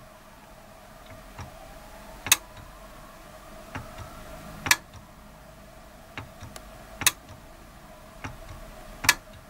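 The 48-volt relay inside a digital programmable timer socket clicks as it is switched on and off by its buttons with no load plugged in. There are four sharp clicks about two and a half seconds apart, each a moment after a fainter button tick. The coil switches cleanly, and the faulty contacts only buzz under load.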